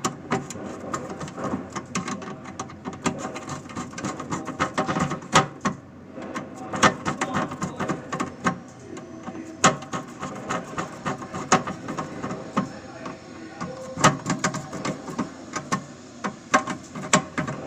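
Irregular series of sharp clicks and light knocks, several close together in places, over a faint steady hum.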